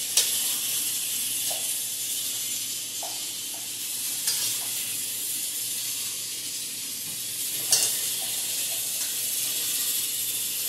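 Fork and chicken pieces clinking against a glass bowl and a metal platter as the pieces are moved across. There are three sharper clinks and a few light taps over a steady background hiss.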